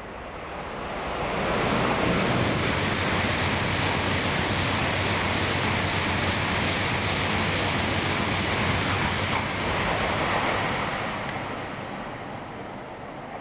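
16-car N700-series Shinkansen passing through a station at speed without stopping: a rush of air and wheel-on-rail noise that builds over the first two seconds, holds steady and loud for about eight seconds as the cars go by, then fades near the end.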